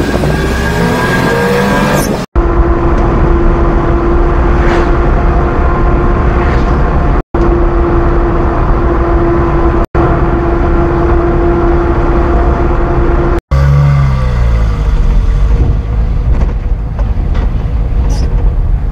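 Japanese kei mini-truck's small engine and road noise in the cab while driving. The engine climbs in pitch as it pulls away at the start, a steady whine holds over the cruise in the middle, and the engine note falls as the truck slows about three-quarters through. The sound is broken by four brief dropouts.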